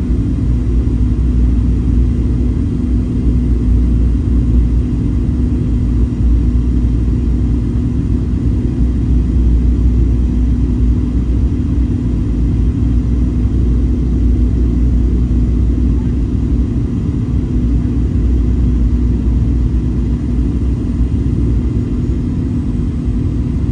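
Boeing 737-800 cabin noise on final approach: a steady low rumble from the CFM56 jet engines and the airflow, with a steady hum running through it.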